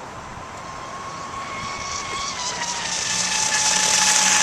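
Radio-controlled catamaran boat running on the water: a high, thin motor whine that dips slightly in pitch a little past halfway, with a hiss, both getting steadily louder.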